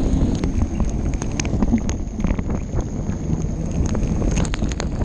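Wind buffeting a GoPro's microphone as a steady low rumble, with raindrops tapping sharply and irregularly on the camera housing during a downpour while cycling.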